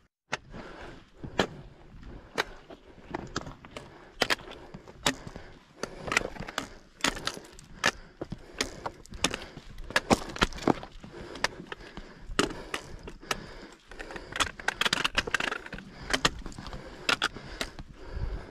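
Hikers' footsteps on a rocky mountain trail: boots scuffing and knocking on stone, with frequent sharp clicks at an uneven pace.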